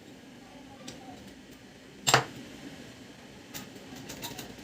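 Parts of a laser printer being handled and fitted back together: one sharp knock about two seconds in, then several lighter clicks near the end, over a steady low hum.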